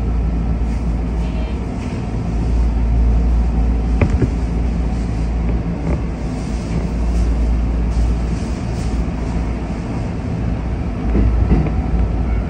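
Shin-Keisei Line electric train heard from inside the front cab: a steady low rumble as the train stands and then pulls away. One sharp click about four seconds in.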